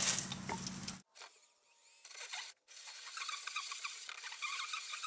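Hole saw on a Skil cordless drill cutting through the plastic wall of a Rubbermaid stock tank: the teeth rasp steadily on the plastic as the saw is wiggled back and forth. The sound drops low for about a second and a half after the first second, then the rasping grind resumes.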